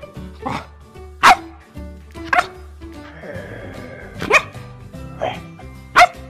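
A puppy barking several short, sharp times, about one a second, over background music.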